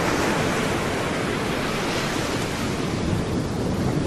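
North Sea surf on a sandy beach: a steady, even rush of small waves breaking on a calm sea, with some wind.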